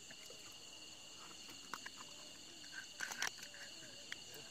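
Night insects, crickets, chirring steadily in several high-pitched bands, with a few light clicks and knocks about a third of the way in and a short cluster of them past the middle.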